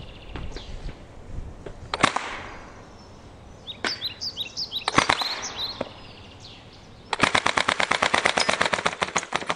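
Cybergun Uzi BB gun firing: a few single sharp cracks, then about seven seconds in a rapid full-auto burst of evenly spaced shots that is still going at the end.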